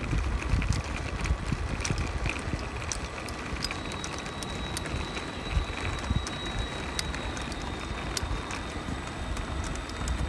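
Radio-controlled toy truck rolling across rough concrete, its wheels crackling over the surface, with wind rumbling on the microphone. A thin, steady high tone comes in about four seconds in.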